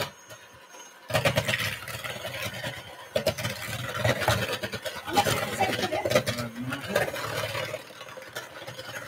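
Electric hand mixer switching on about a second in and running, its beaters working gingerbread dough in the bowl, dropping off near the end.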